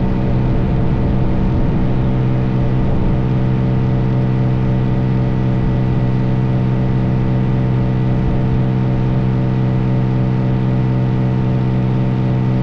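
Kitfox light aircraft's piston engine and propeller droning steadily in flight, heard from the cockpit.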